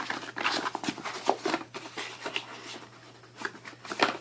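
Paper leaflets and packaging being handled: a dense run of crinkling and rustling for the first couple of seconds, then a few scattered crackles.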